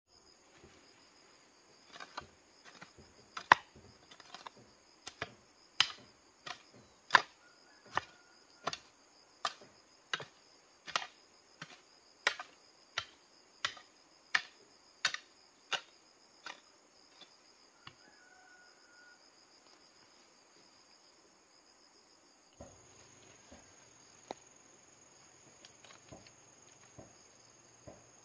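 Metal hand hoe chopping into dry, stony soil, a sharp strike about every three-quarters of a second for some fifteen seconds, then stopping; a few fainter strikes come near the end. A steady high drone of insects runs underneath.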